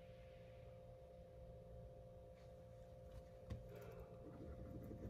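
Near silence: quiet room tone with a steady electrical hum, and a few faint taps in the second half.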